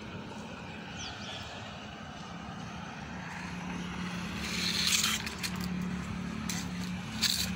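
A motor vehicle engine running steadily with a low hum, with short bursts of hiss about five seconds in and again near the end.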